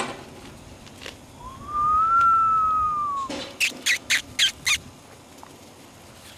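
A person whistles one long note that rises slightly and falls back. This is followed by five quick, high, squeaky smacking sounds in a row.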